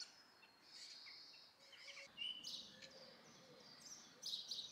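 Faint birdsong: scattered high chirps and short whistled notes, with a louder burst of chirping near the end.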